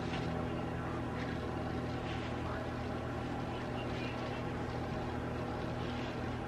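Steady low mechanical hum of a running appliance, holding several unchanging low tones, with faint soft rustles over it.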